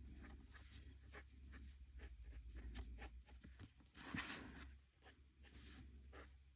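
Faint scratching of a Tombow brush marker's tip on paper in many short, quick strokes, with one louder, longer rustle about four seconds in as the paper card is shifted.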